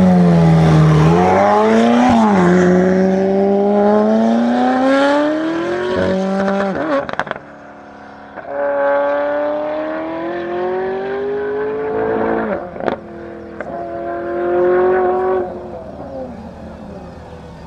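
Tuned twin-turbo V8 of a McLaren 650S, built to about 1150 hp, launching and accelerating flat out. The engine note climbs and drops sharply at each of several upshifts, then fades as the car pulls away and lifts off near the end.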